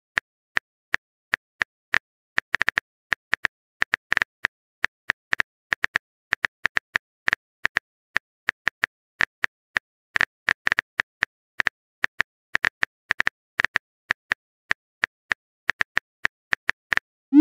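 Phone keyboard tap sound effects: short, sharp clicks at an uneven typing pace, about three or four a second, as a text message is typed letter by letter.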